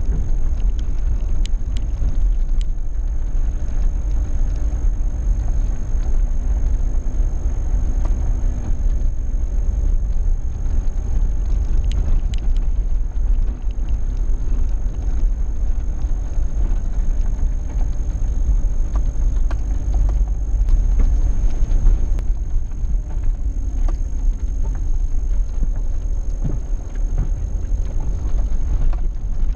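Vehicle driving on an unpaved dirt track, heard from inside the cab: a steady low road and engine rumble with scattered short clicks and a thin high whine over it.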